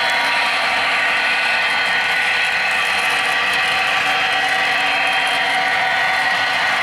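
HO scale model trains on the layout making a steady mechanical whirring hum, with several high, even tones held throughout.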